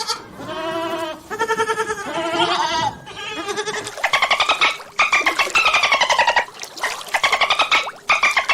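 Goats bleating: a run of wavering calls, one after another with short breaks between them.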